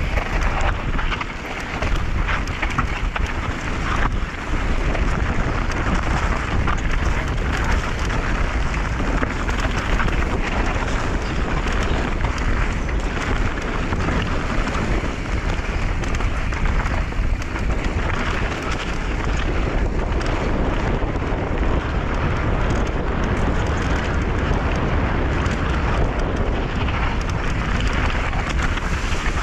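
Mountain bike descending a rocky trail at speed: steady wind rush on the microphone over a dense crackle of tyres on rock and the bike rattling.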